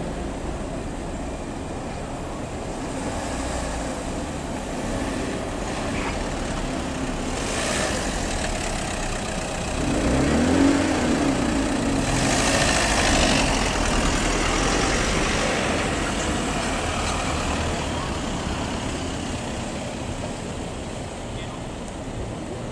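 Street traffic with car engines running and vehicles driving past. About ten seconds in, one engine revs up and back down, and a louder vehicle passes just after.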